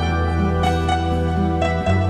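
Background music: a slow, soft instrumental with plucked notes over a held bass note.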